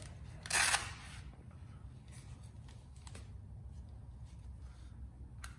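A blood flow restriction air cuff's strap is pulled around an upper arm and fastened, with one short rasping rip about half a second in. Faint handling clicks and rustles follow over a low steady hum.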